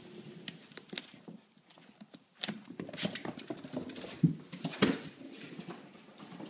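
Pembroke Welsh corgi puppy scampering indoors: quick, irregular pattering and clicking of paws, with a few louder knocks and scuffs near the middle.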